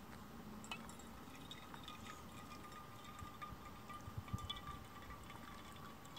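Slow, thin pour of hot water from a metal pot onto coffee grounds in a pour-over dripper over a metal mug: a faint trickle with a steady thin ringing tone and scattered light ticks, a cluster of them about four seconds in.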